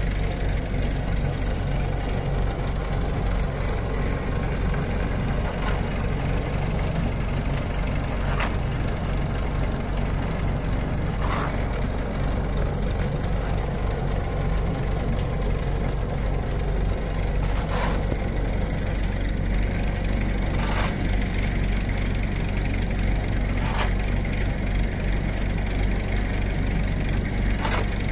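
Tractor engine running steadily at constant speed while working a feed mixer wagon, with a short sharp click every few seconds.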